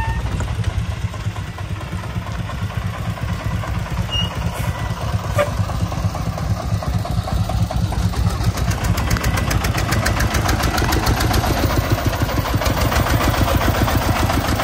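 Single-cylinder diesel engine of a sand-laden công nông three-wheeled farm truck chugging as it drives up close. It grows louder, and its regular firing beats come through sharply in the second half.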